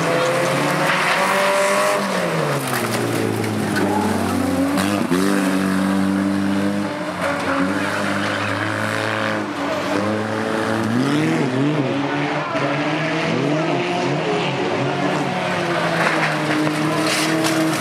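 Several banger race cars' engines running hard on an oval track, their notes rising and falling as they accelerate and lift off.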